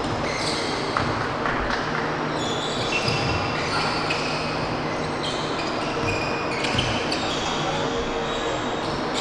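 Basketball game sounds on a hardwood court: the ball bouncing and sneakers squeaking in many short, high chirps as players run and cut.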